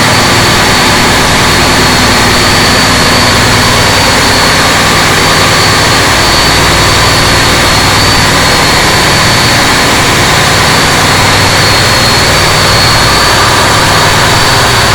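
A boat engine running steadily and loudly, a constant rushing noise with a steady high whine and a low hum that do not change.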